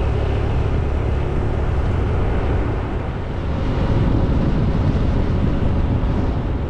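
Steady, deep driving noise from a vehicle moving along a road.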